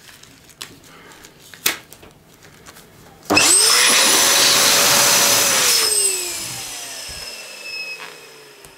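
Electric balloon pump switching on about three seconds in and blowing air into a latex balloon for nearly three seconds, then switched off and spinning down with a falling whine. A few small handling clicks come before it.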